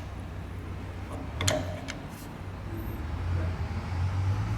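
A single sharp metallic clink about a second and a half in, as a wrench works on the lock nut of a fuel injector clamped in its holder fixture, over a steady low hum that grows louder near the end.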